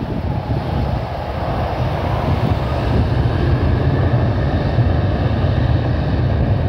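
Jet engines of an American Airlines airliner on the runway: a loud, steady rumble that grows a little louder over the first few seconds.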